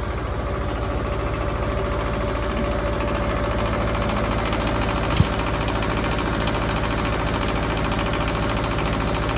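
Wood-Mizer LT28 portable sawmill's engine running steadily, with one sharp knock about halfway through.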